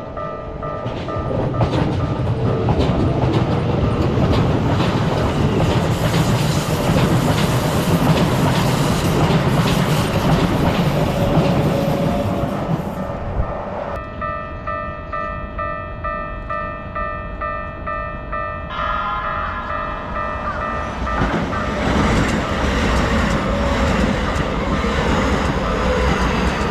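Keikyu trains passing over a level crossing while its warning bells keep ringing. One train goes through in the first half. Around the middle the bells ring on their own, with a second set of tones joining just after, and another train comes through near the end.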